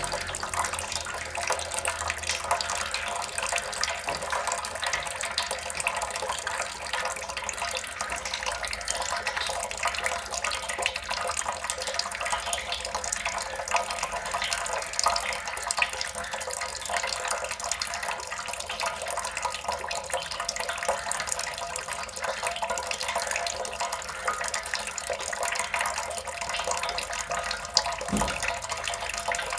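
Water dripping and trickling without pause: a dense, steady patter of many small drops splashing into water. A single dull thump sounds near the end.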